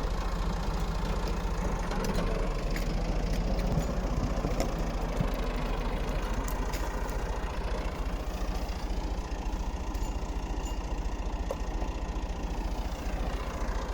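A vehicle engine idling steadily, with a low, evenly pulsing hum.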